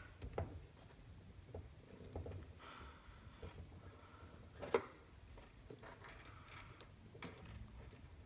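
Faint scattered clicks and rustling of bare wire being twisted and hooked onto an electric motor's terminal, with one sharper click near the middle.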